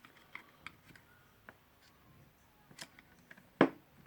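Small scattered clicks and taps of plastic tool parts and wiring being handled and pushed into place, with one sharper knock about three and a half seconds in.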